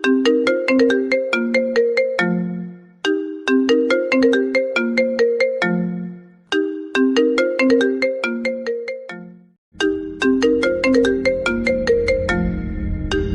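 Mobile phone ringtone: a short melody of struck, quickly fading notes repeated four times, each phrase about three seconds long with a brief pause between. A low steady drone comes in underneath about ten seconds in.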